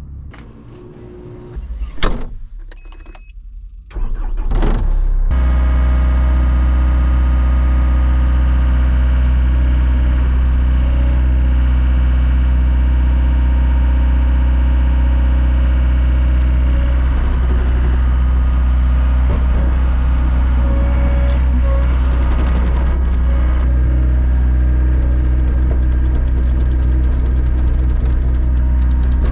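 Plow truck's engine running steadily, a loud, even low rumble that comes in about four seconds in after a few clicks.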